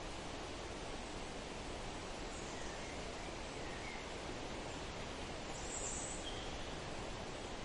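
Steady wind through forest trees, with a few faint, short bird chirps; one brighter, high call comes about six seconds in.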